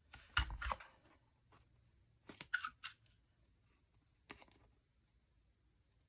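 Paper and cardstock pieces being handled and shifted on a desk: two short bursts of rustling and crunching, one about a second in and one near the middle, then a single click.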